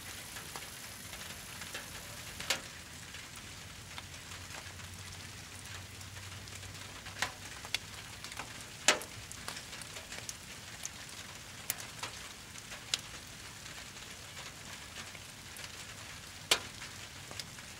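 Wood and brush campfire crackling, with a steady hiss and scattered sharp pops every few seconds, the loudest about halfway through and another near the end.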